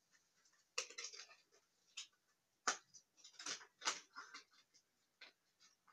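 Hands handling a plastic toy container and its packaging: irregular clicks and crinkles, the sharpest about a second in, near the middle and around four seconds in.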